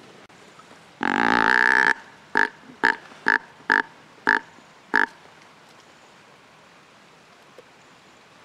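Deer call blown close by: one long call lasting about a second, then six short calls in quick succession.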